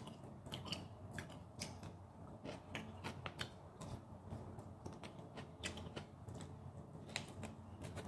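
Close-up chewing of saucy beef steak held in the fingers: faint, irregular wet clicks and smacks from the mouth, a few a second.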